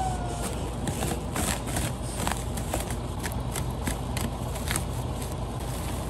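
Plastic stretch wrap crinkling and crackling in quick, irregular snaps as it is cut and pulled off a shipping pallet, over a low steady rumble.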